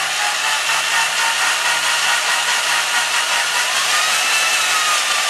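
Electric drill running steadily, spinning an engine valve through a rubber hose on its stem to lap it into its seat with lapping compound. The motor's whine rises slightly in pitch a little past the middle, then settles.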